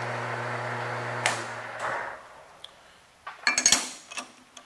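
Metal lathe running with a steady hum, switched off with a click about a second in and spinning down to a stop. Then a quick cluster of sharp metal clinks as the lathe chuck is handled to free the finished aluminium hub.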